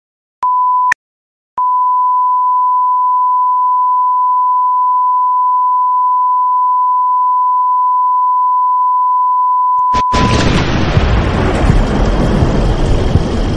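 Television test-card reference tone, the steady beep broadcast with colour bars: a short beep about half a second in, then after a brief gap the same tone held steady for about eight seconds. It cuts off and a loud, even hiss of noise takes over near the end.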